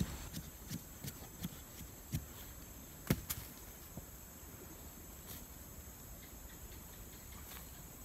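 A wooden stick jabbed into dry, sandy earth, dull thuds about every half second for the first few seconds, the loudest about three seconds in. Then only faint scrapes as soil is scooped from the hole by hand, over a steady high insect drone.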